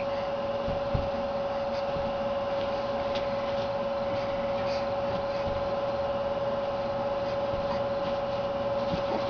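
Steady mechanical hum with a constant mid-pitched whine running through it, unchanging throughout.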